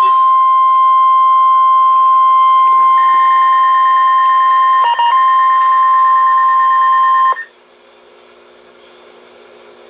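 NOAA Weather Radio 1050 Hz warning alarm tone sounding for the weekly test: one loud, steady high tone with a brief dropout about five seconds in. It cuts off suddenly after about seven seconds, leaving faint receiver hiss.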